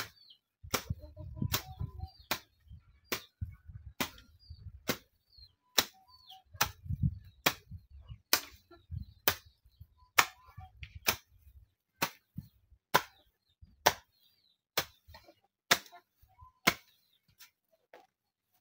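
Hand hoe striking and digging into garden soil in a steady rhythm, about twenty sharp strokes a little more than one a second, stopping shortly before the end.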